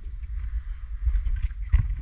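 Wind rumbling on the microphone in a small boat, with light knocks and a sharp thump near the end as a black bream is swung aboard and lands in the boat.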